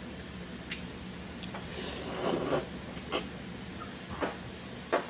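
Handling noises: a few light, sharp clicks and a brief rustle, such as dishes, utensils or packaging being moved.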